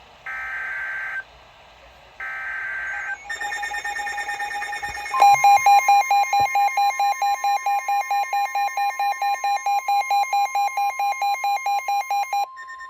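Two buzzy EAS SAME data header bursts, each about a second long, end the digital header. NOAA weather radios then go off with tornado warning alerts: a fast pulsing electronic alarm starts about three seconds in, and from about five seconds a louder pulsing beep sounds over the steady weather-radio warning tone. The loud pulsing stops shortly before the end while a fainter alarm and the steady tone continue.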